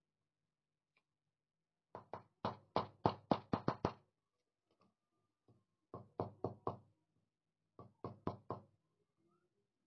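Small hammer striking a silver earring piece on a steel anvil block: three quick runs of light metallic knocks, about nine in the first run, then four, then four more.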